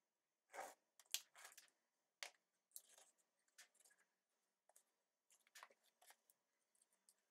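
Faint, scattered scrapes, rustles and small knocks of a knife and hands working soil and seedlings in small pots while repotting.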